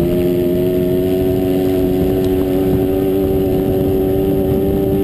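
Dirt track motorcycle engine running hard at steady high revs, its pitch creeping slightly upward, heard from on board at speed over a low rumble of wind.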